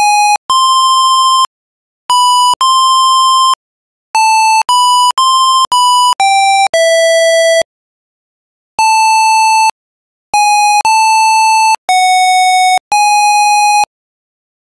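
PC speaker playing a GW-BASIC tune as a string of buzzy single-tone beeps, one note at a time, in short and longer notes with brief gaps between them. The notes stop near the end.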